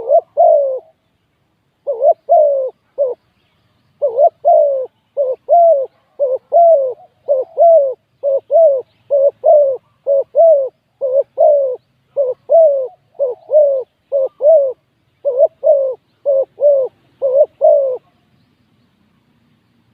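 Spotted dove cooing: a long run of short, downward-curving coos in groups of two or three, stopping near the end.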